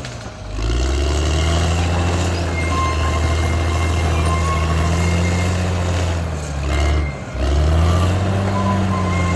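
Caterpillar D6R XL bulldozer's diesel engine running steadily under load, with a thin steady high whine alongside. The sound dips briefly twice, about a third of a second in and about seven seconds in.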